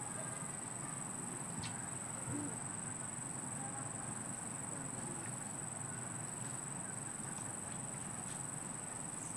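Continuous high-pitched drone of insects, with a few faint clicks over it.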